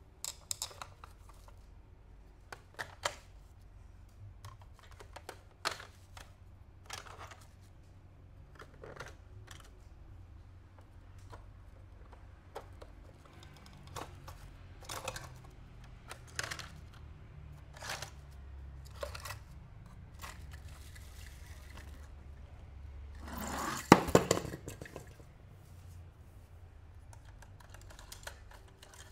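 Toy car packaging being opened by hand: scattered sharp clicks and short crinkles of plastic and cardboard, with one longer, louder tearing rustle about three-quarters of the way through.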